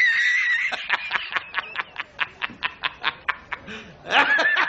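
A man laughing hard: a high-pitched held note, then a fast run of 'ha-ha' bursts at about seven a second, and another high-pitched laugh near the end.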